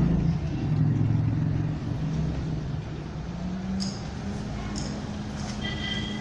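Maruti Suzuki Celerio hatchback's engine running at low speed as the car manoeuvres; its steady low hum rises slightly in pitch about four seconds in.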